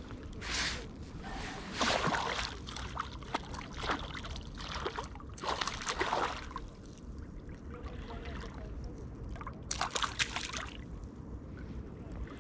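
Water splashing and sloshing in several short bursts, the strongest about two, six and ten seconds in.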